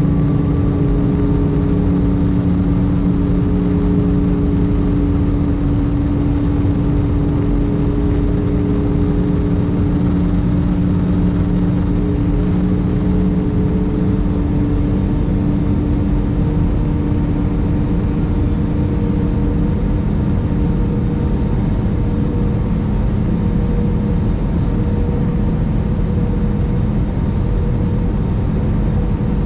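Airbus A319 cabin noise during the approach: steady rushing air and engine hum, with a few steady droning tones. About halfway through one tone glides up slightly, and some of the lower tones fade out a few seconds later.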